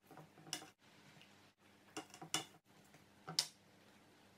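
Metal spoon clicking against a ceramic bowl while scooping minced pork filling: a few faint, short clicks, three in quick succession about two seconds in.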